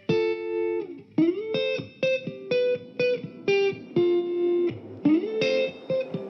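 Background music: a plucked guitar melody of short notes, with a couple of sliding notes.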